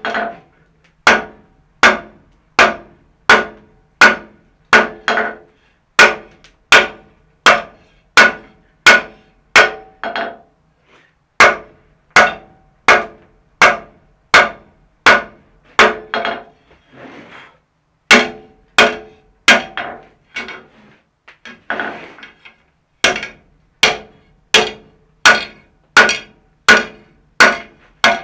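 Hand hammer striking a red-hot steel hinge strap on an anvil, steady blows about two a second, each followed by a short anvil ring. The rhythm breaks twice briefly past the middle, with lighter noises in between.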